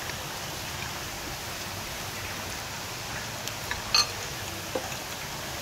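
Steady background hiss with a few light clicks of cutlery on plates, and one sharp ringing clink of metal cutlery against a ceramic plate about four seconds in.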